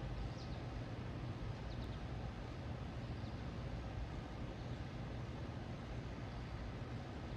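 Steady low outdoor rumble, with faint, brief high bird chirps about half a second in and again near two seconds.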